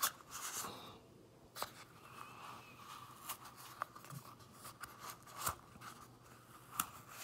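Quiet scraping and a scattered series of sharp clicks as kinetic sand is dug and pulled out of its container by hand.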